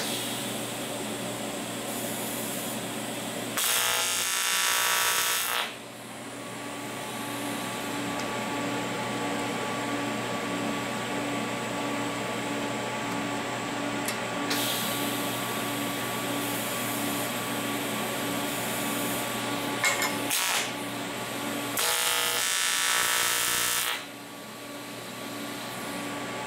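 AC TIG arc buzzing on 7075 aluminum as the seam is spot-welded: two loud tacks of about two seconds each, one a few seconds in and one near the end, with a couple of faint brief arcs between. A steady hum from the welding machine runs underneath.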